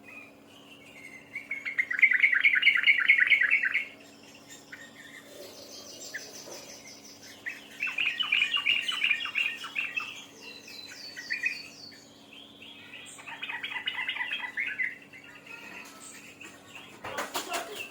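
Songbird in full song, delivering three loud bursts of rapid repeated chirping trills a few seconds apart, with thinner, higher trills in between. A steady low hum runs underneath, and a brief noisy burst comes near the end.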